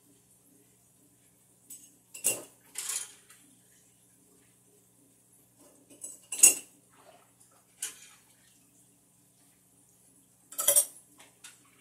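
Several short, sharp clinks and clatters, like dishes and cutlery being handled, spread apart over a faint steady low hum; the loudest comes a little past the middle.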